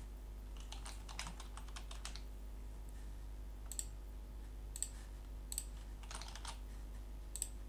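Typing on a computer keyboard: a quick burst of keystrokes about a second in, then a few scattered single clicks, over a faint low hum.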